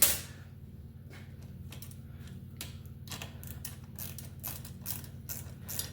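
Irregular light clicks and taps of small bicycle brake parts being handled, with one sharp click at the start, over a low steady hum.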